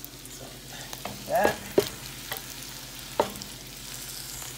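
Cooked-down ground meat sizzling steadily in a frying pan as chopped herbs and tomatoes are scraped in from a wooden cutting board, with a short scrape and a sharp click about a second and a half in and another knock just after three seconds.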